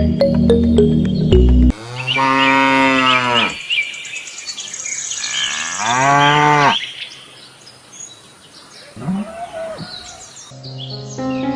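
Cow mooing: two long calls whose pitch rises and then falls, followed by a shorter, fainter call. Background music plays at the start, stops, and comes back near the end.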